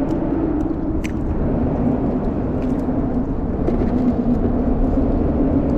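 Steady engine drone with a low rumble underneath, its hum wavering slightly in pitch, and a few light clicks over it.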